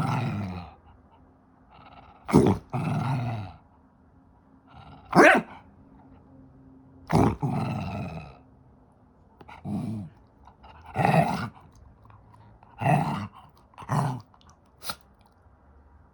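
Elderly dog barking and growling in short bursts, about eight in all, spaced a second or two apart, several of the barks trailing off into a short growl.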